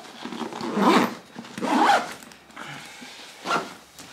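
Backpack zipper pulled in a few quick strokes, the two loudest about a second apart, with the fabric bag rustling as it is packed.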